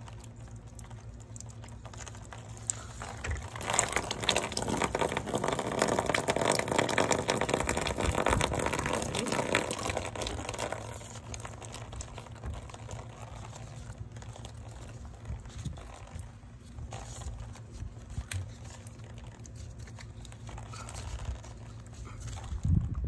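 Leftover water running and splattering out of the opened port of a PVC water-line tee for about seven seconds, then fading out. Light knocks and rubbing of a galvanized steel fitting being threaded into the tee by hand follow, with a sharper knock near the end.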